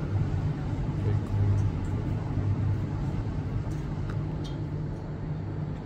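Steady low motor rumble with a few faint clicks, cutting off suddenly at the end.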